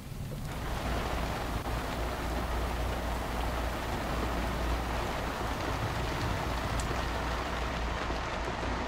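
Steady rain falling on the water and on a sailboat's canvas bimini, an even hiss with a low steady rumble underneath.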